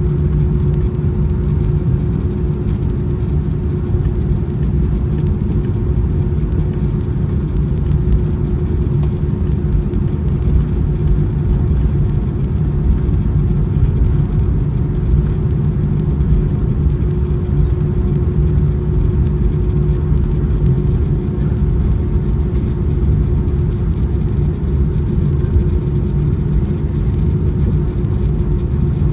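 Cabin noise of an Airbus A319 taxiing after landing: a steady low rumble from the idling jet engines and the rolling airframe, with one steady hum over it.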